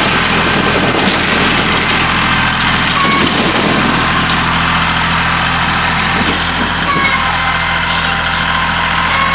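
An engine running steadily at an even speed, with a few short high chirps over it.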